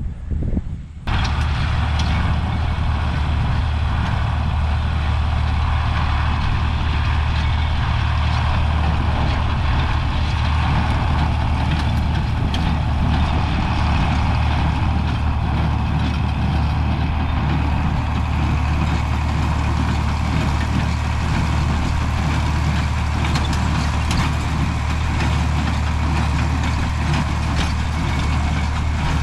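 Vintage John Deere tractor running steadily, pulling a working square hay baler, with faint clicks in the steady machine noise. The sound starts abruptly about a second in.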